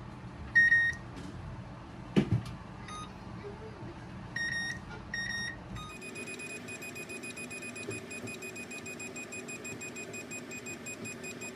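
Electric oven's touch control panel beeping as its buttons are pressed: a few single beeps, with a light knock in between. From about halfway, the up arrow is held and a rapid, even string of short beeps plays as the cook time counts up.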